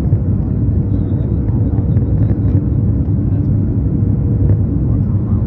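Steady cabin noise inside a Boeing 737 MAX 8 on its landing approach: a loud, even low rumble of airflow and engines, with a faint steady hum above it.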